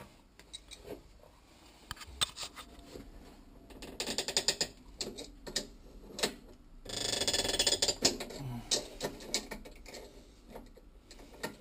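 Brass compression fitting on copper pipe being tightened with an adjustable spanner: scattered clicks of the spanner on the nut, with a run of rapid creaky ticking about four seconds in and a louder squeak about seven seconds in as the nut turns. The squeak comes from the fitting being done up tight.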